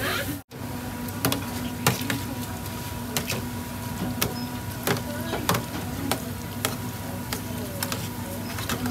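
Clatter at a fritter stall: irregular clicks and light knocks over a steady hum. The sound cuts out for a moment about half a second in.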